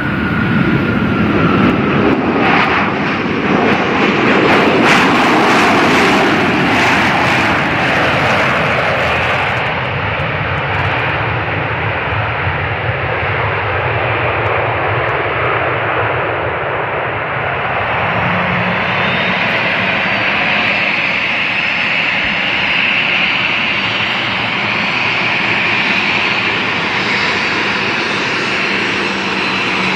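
Jet airliner engines running loud and continuous as the aircraft passes, peaking a few seconds in. About two-thirds of the way through, a steady low hum and a high whine come in over it.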